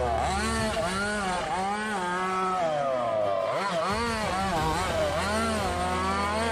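RC car's motor revving up and down over and over, its pitch rising and falling about once a second over a steady low hum.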